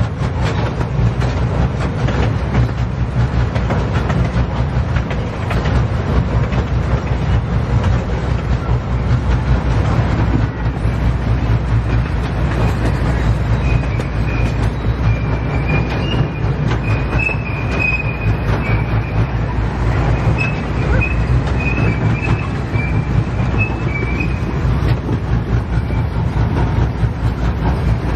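Ride-on miniature train running along its track, heard from aboard: a steady rumble from the wheels with frequent clicks over the rail joints. From about halfway through, a high, wavering squeal of wheels on the rails comes and goes for several seconds.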